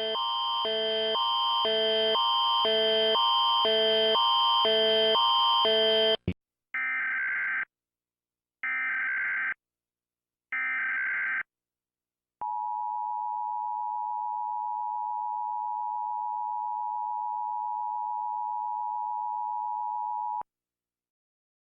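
A run of emergency alert alarm tones: a pulsing alarm tone repeating a little over once a second for about six seconds, then three short beeps about two seconds apart, then one long steady tone of about eight seconds that cuts off suddenly.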